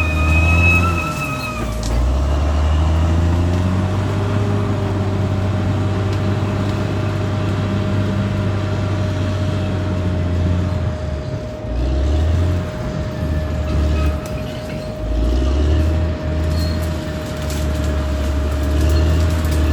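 Caterpillar D6R XL bulldozer's diesel engine working under load, with a steady thin whine over it. The engine note drops briefly several times in the second half and picks back up.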